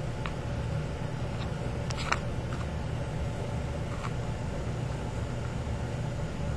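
A steady low hum, like a small fan or motor, runs under a few faint scratches and taps from kittens climbing a scratcher that hangs on a door handle, the clearest about two seconds in.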